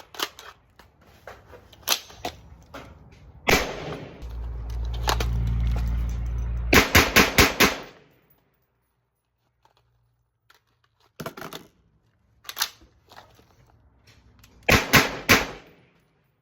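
HS Produkt VHS-2 bullpup rifle in 5.56x45 NATO firing: a few single shots, then a rapid string of about five shots about seven seconds in, two more single shots, and a quick string of about four near the end. A low steady rumble runs for a couple of seconds just before the first rapid string.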